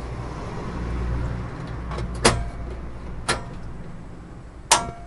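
Portable gas camping stove's piezo igniter clicking three times as its knob is turned: about two seconds in, a second later, and the loudest near the end.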